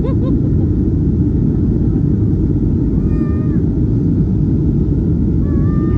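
Steady airliner cabin noise in flight, a loud low rush of engines and airflow. Twice, about three seconds in and again near the end, a short high-pitched call rises over it, held for about half a second and dropping away at its end.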